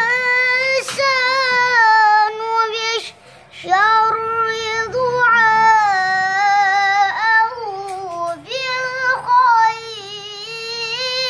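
A young boy chanting Quran recitation in a melodic tilawah style: long held notes with wavering ornaments, with two short pauses, about three and eight seconds in.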